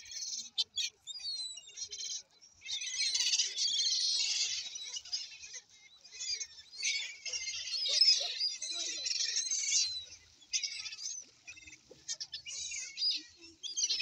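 A flock of gulls calling: high, squealing cries in dense bursts of several seconds, broken by short lulls.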